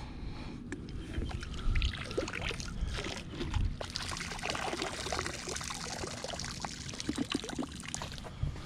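Water splashing, trickling and sloshing in short irregular bursts, with scattered small knocks and a few low thumps.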